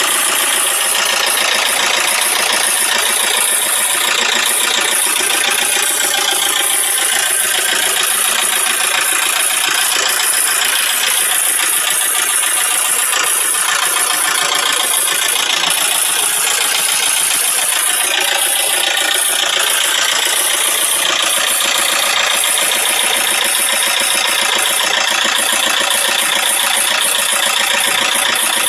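Isuzu 4JG2 four-cylinder diesel engine running with a steady, rapid metallic clatter, which the owner takes for the valves striking the pistons.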